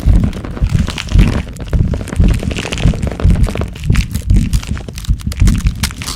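Body-transformation growth sound effect: irregular deep thuds overlaid with many sharp cracking and crunching clicks.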